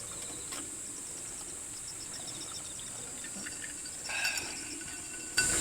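Crickets and other night insects trilling steadily: a continuous high shrill with faint rapid chirping beneath it, getting louder near the end.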